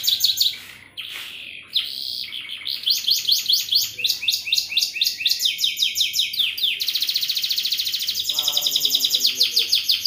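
Domestic canary singing a long, loud song of fast rolling trills, each made of rapidly repeated high notes, with a short break about a second in.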